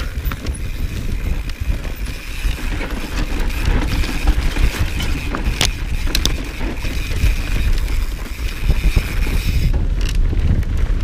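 Mountain bike rolling over rough grass and dirt, with its frame and parts rattling and occasional sharp clicks, over a low rumble of wind on the microphone.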